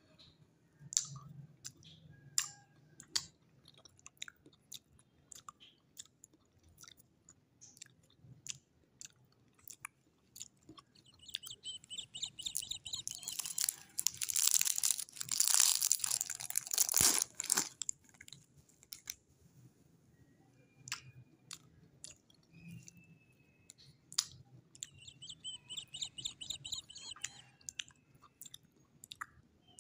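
Clear cellophane lollipop wrapper crinkling and crackling as fingers twist it open. The crinkling is loudest in a dense stretch of several seconds midway. Before it come scattered small clicks and crackles, and a shorter crinkle follows near the end.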